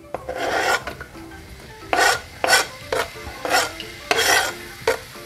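Knife blade scraping sliced shallots and garlic off a plastic cutting board into a wok, in about six short rasping strokes.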